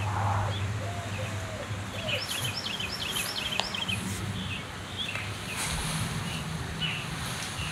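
Small birds chirping: a quick run of short high chirps about two seconds in, then scattered single chirps, over a steady low background hum, with one sharp click near the middle.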